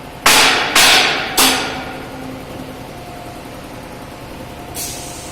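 Three loud hammer blows on metal in quick succession, each ringing and dying away, then a lighter strike near the end over a steady workshop hum.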